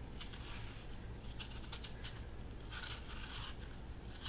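Small knife paring the skin off a Honeycrisp apple: a few short spells of soft scraping and slicing, over a faint steady low hum.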